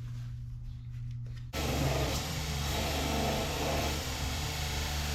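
Low steady hum, then an electric angle grinder switches on suddenly about a second and a half in and runs steadily.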